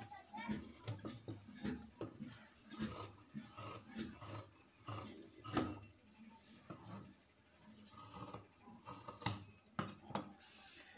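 Tailor's scissors snipping and slicing through khaki shirt fabric in a run of irregular cuts, with the cloth shuffled on the table. A cricket chirps steadily in a fast trill behind it.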